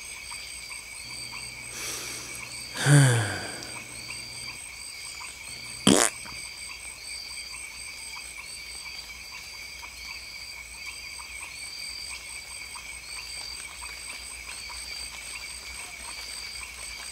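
Bush night ambience of insects and frogs: a constant high chirring with a short chirp repeating a little more than once a second. About three seconds in, a loud glide drops steeply in pitch, and about six seconds in there is a single sharp crack.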